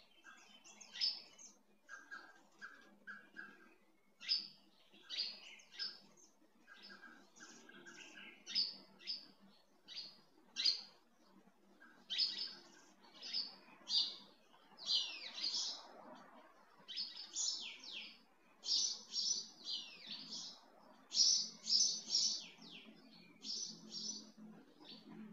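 Small birds chirping and twittering, many short high calls in quick, irregular runs.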